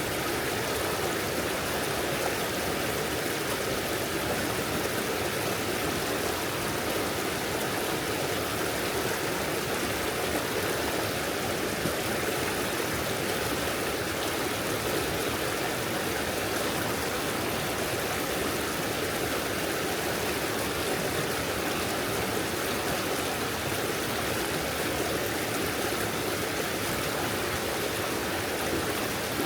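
Shallow stream flowing and babbling over stones, a steady, even rush of water.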